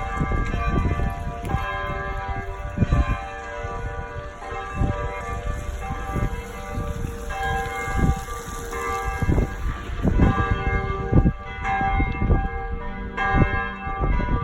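Church bells ringing, several bells struck in quick succession so their sustained, overlapping tones blend into a continuous peal, over a low rumble.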